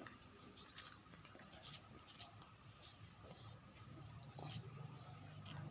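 A Persian cat licking and chewing wet cat food, heard as a few faint, scattered wet clicks.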